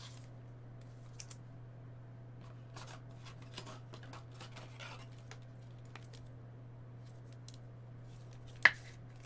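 Soft scrapes and light clicks of a trading card being slid into a rigid plastic toploader, with one sharper click about a second before the end.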